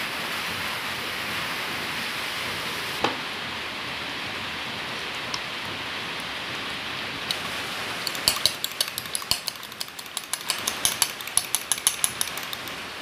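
Metal fork clicking and tapping against a dish in quick, irregular strokes through the second half, over a steady hiss. Before that, mostly the hiss, with a single click about three seconds in.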